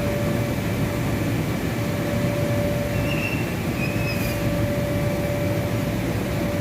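Steady hum of the electric blower fans that keep the inflatable slides and bounce houses inflated, a constant drone with a held tone in it. A couple of faint brief high squeaks come in around the middle.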